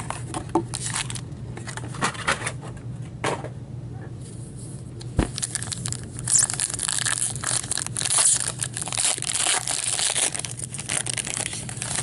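Foil trading-card pack wrapper crinkling and tearing as gloved hands handle packs and rip one open: scattered crackles at first, then dense crinkling from about halfway through.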